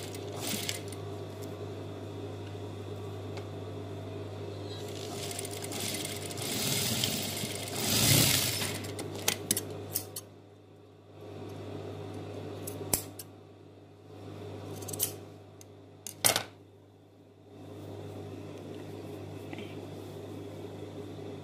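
Industrial sewing machine with a steady motor hum, running a short stretch of stitching that builds to its loudest about eight seconds in. After it come several sharp metallic clicks and snips of scissors trimming thread and fabric.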